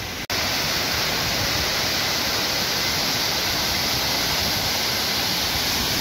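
A waterfall pouring down over rocks: a steady, even rush of falling water, with a brief break just after the start.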